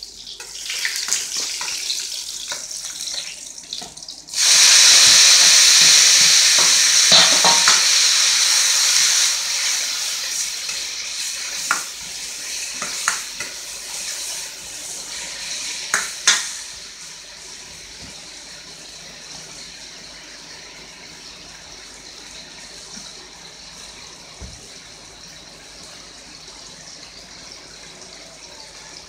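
Food stir-frying in a wok. A loud sizzle starts suddenly about four seconds in and fades over the next dozen seconds, with a few sharp clinks of the metal spatula against the wok, then a low, steady sizzle.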